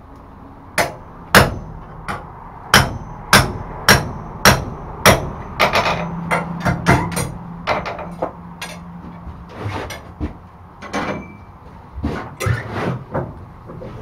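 Hand hammer striking a punch driven through a cold steel latch bar on a punch block over the anvil, each blow ringing metallically. About eight heavy, evenly spaced blows in the first five seconds, then a run of quicker, lighter strikes, then a few scattered ones near the end.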